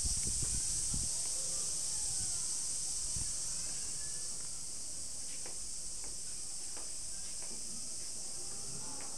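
Steady high-pitched hiss, with faint distant voices and a few soft knocks in the first second.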